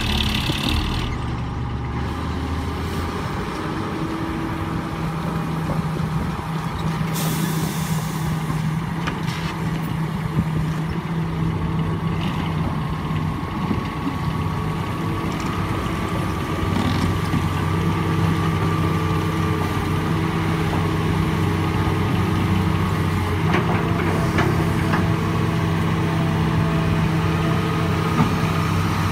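Heavy diesel engines of a semi-trailer dump truck and an excavator running steadily, with a short air-brake hiss about seven seconds in.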